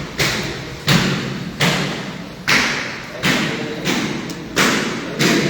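Steady hammer blows, about seven strikes evenly paced a little under a second apart, each hard and sharp with a short ringing decay, as in construction work on stone, tile or wood.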